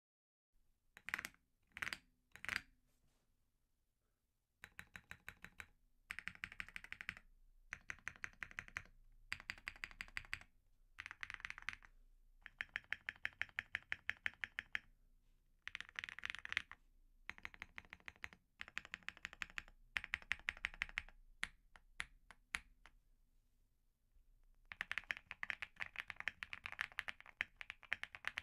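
Owlab Link65 spring-mounted custom mechanical keyboard with an FR4 plate and lubed Graphite Gold switches being typed on. Three separate loud clicks come in the first few seconds, then short bursts of fast keystrokes with pauses between them, and steady continuous typing over the last few seconds.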